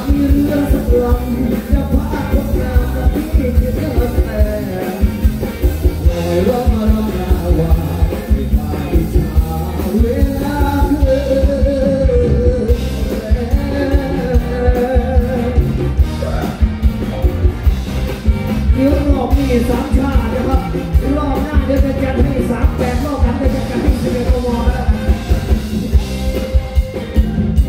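A live band plays through a stage PA while a man sings lead into a handheld microphone, over a steady drum beat with electric guitar.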